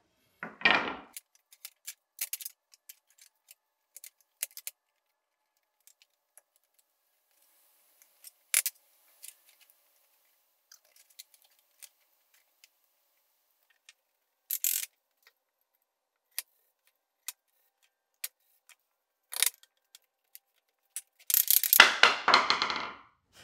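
Wooden cabinet face-frame stiles and rails set down and fitted together on a workbench: scattered knocks and clicks of the boards, with a louder knock about half a second in. Near the end comes a burst of mallet taps as the frame joints are knocked closed.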